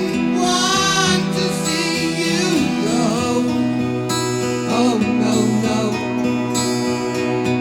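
Rock music played from a vinyl record over loudspeakers: a guitar-led instrumental passage over a steady bass line.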